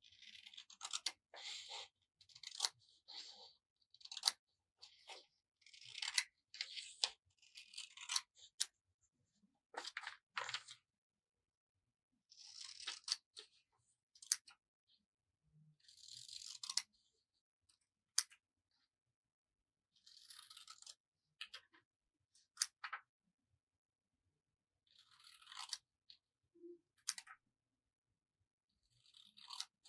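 Scissors snipping through paper in runs of short, crisp cuts, with brief pauses between the runs.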